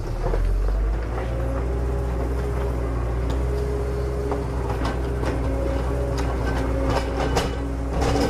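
Huina 1593 radio-controlled toy excavator running, its electric motors and plastic gears whining at steady pitches that change as different functions start and stop, with clicks and clatter from the moving parts, heaviest near the end.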